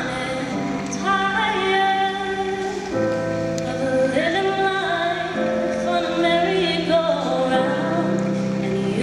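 Slow music with singing: voices and accompaniment holding long notes together, moving to new notes every second or two.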